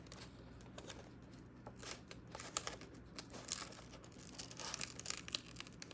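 Small vinyl decal pieces being peeled by hand off their paper backing sheet, with soft crinkling of the sheet and light scattered clicks of fingernails on the vinyl.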